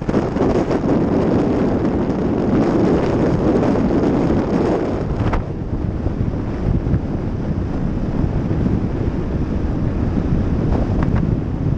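Wind buffeting a GoPro's microphone on a moving vehicle, loud and steady, with low vehicle rumble beneath; it eases a little about halfway through.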